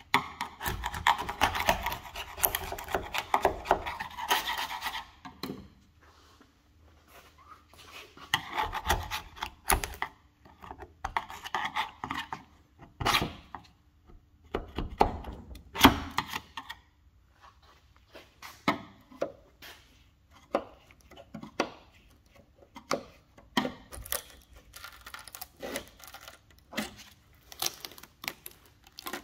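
Car bodywork being sanded or abraded by hand: rough rubbing strokes in bursts, with a few sharp knocks in between.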